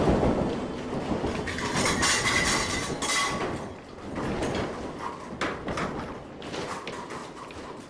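Seven-story wood-frame building shaken on a shake table in a simulated earthquake: a dense clatter of knocks, bangs and rattles from the timber frame and its fittings, fading away near the end.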